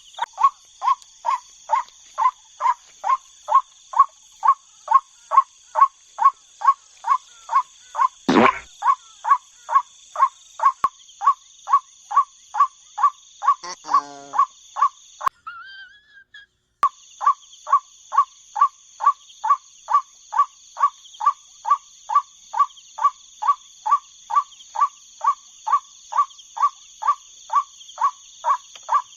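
White-breasted waterhen lure call from an MP3 player, one croaking 'ruak' note repeated very evenly about twice a second, over a steady high drone of night insects. A single sharp knock comes about eight seconds in, and everything stops briefly just past the middle.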